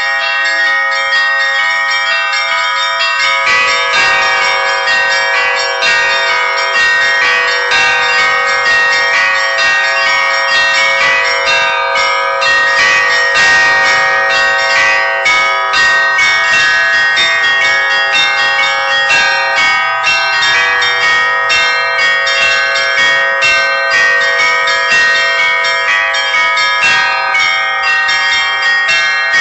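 Church bells ringing a rapid peal, many bells struck over and over. A lower bell joins about three and a half seconds in.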